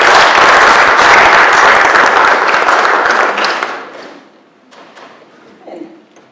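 Congregation applauding, a dense clapping that dies away about four seconds in, followed by a few faint knocks.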